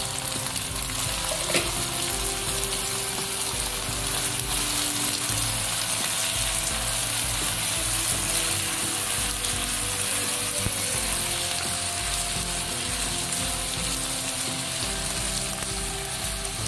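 Green garlic sizzling in hot oil as it is stir-fried in a non-stick wok, with a spatula stirring and turning it.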